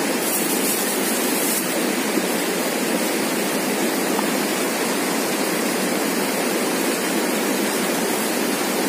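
Fast river rapids rushing steadily, a continuous even roar of whitewater.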